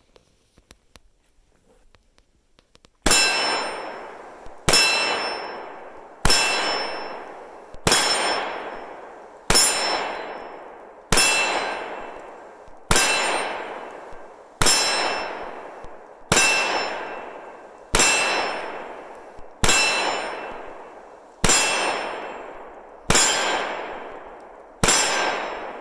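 Springfield XD-M 9mm pistol fired in slow, steady single shots, fourteen of them about a second and a half apart starting about three seconds in. Each shot is followed by a long metallic ring as the steel target is hit.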